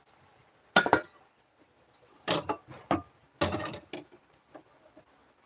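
Cookware clattering on a gas stove: two sharp metal knocks about a second in, then two longer runs of clinking and knocking as pans are handled.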